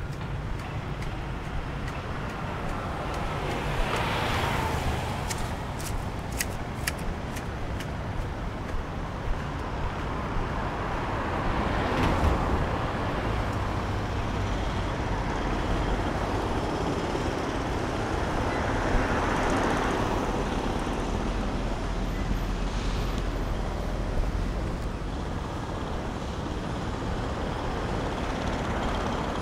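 Road traffic on a multi-lane city avenue: vehicles pass one after another over a steady low rumble, swelling and fading about four times. A short run of sharp clicks comes about six to seven seconds in.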